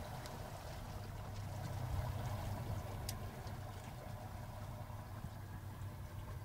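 Boat motor running steadily at low speed, a low even hum, with one brief click about three seconds in.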